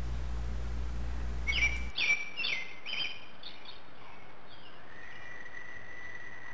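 Backyard birds chirping in a quick run of short, high notes, with a steady high tone starting about five seconds in.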